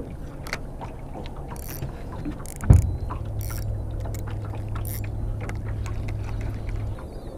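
A sharp thump, then a steady low hum for about four seconds that stops abruptly, as from a bass boat's electric trolling motor. Small clicks of line and reel handling from a spinning reel are heard throughout.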